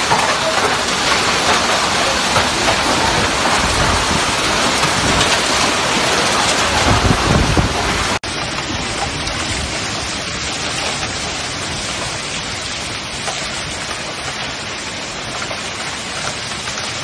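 Heavy hail and rain pelting down in a wind-driven storm, a dense continuous noise. About eight seconds in it cuts to a slightly quieter, steady patter of hail still falling.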